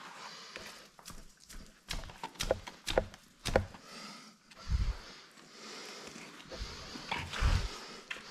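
Knocks and scrapes of a caver's body and gear against wet rock while climbing through a narrow muddy cave passage: a quick run of sharp knocks a couple of seconds in, then two dull thumps.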